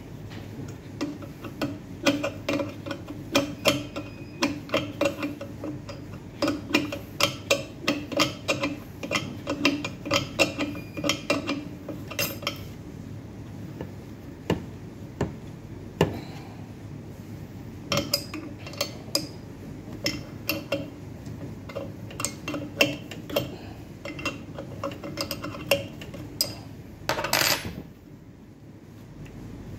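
Irregular light metallic clicks and clinks of hands handling fittings and parts inside a Melag 31B autoclave, over a steady low hum. Near the end there is one short rasping noise of about half a second.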